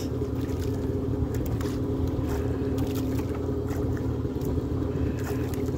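An engine aboard a wooden fishing boat running steadily, a constant drone with a low rumble and a steady hum, with a few faint clicks and taps over it.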